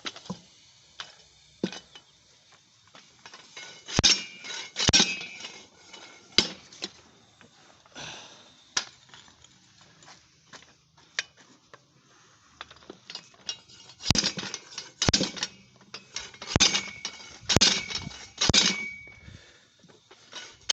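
Slide-hammer tire bead breaker striking to break a tire's bead from the wheel: irregular sharp metal clanks, each with a short ring. A few strikes come about four to six seconds in, then a quieter stretch, then a quicker run of blows near the end.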